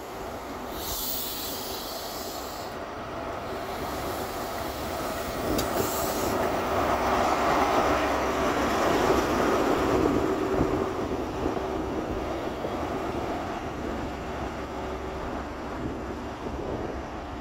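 High Speed Train (InterCity 125) rolling slowly past at close range, with rumbling and squealing wheels. Its Class 43 diesel power car passes, and the engine sound peaks about halfway through. A brief hiss sounds about a second in.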